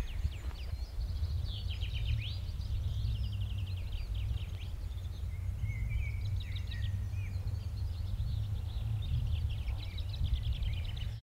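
Small birds singing in quick runs of repeated chirps and trills, over a steady low rumble; the sound cuts off abruptly near the end.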